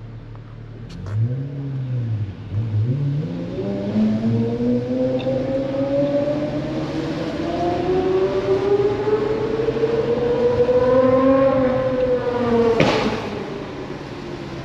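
Pagani Zonda F's 7.3-litre AMG V12 blipping its revs twice, then accelerating in one long, steady climb in pitch. Near the end it eases off with a single sharp crack.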